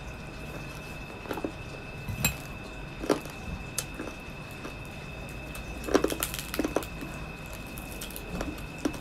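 Crispy pata (deep-fried pork knuckle) being chewed and torn apart by hand: scattered crackles and clicks from the crisp skin, with a denser run of them about six seconds in.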